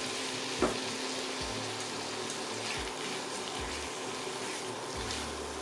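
Chicken liver and onions frying in butter in a pan, sizzling steadily, with one light knock about half a second in, over background music.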